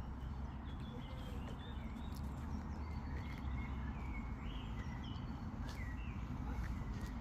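Small birds chirping, with many short whistled notes coming one after another, over a steady low rumble.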